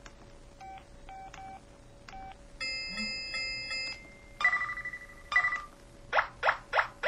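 A run of short electronic effect tones from the IM-7400 mobile phone: three quick beeps about a second in, a dial-tone-like chord around the middle, a two-note tone, then three fast rising chirps near the end.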